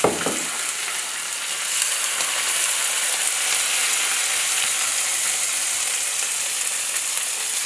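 Bacon and tomato sauce sizzling steadily in a hot frying pan while a wooden spoon stirs them, with a short knock at the very start.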